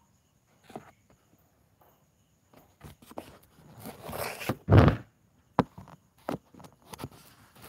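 Handling noise from the phone being moved close to the wire crate: scattered clicks and knocks, with a louder rustle and a bump about four to five seconds in.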